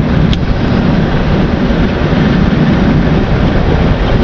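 Steady wind buffeting an action camera's microphone, a loud rumble with a hiss over it.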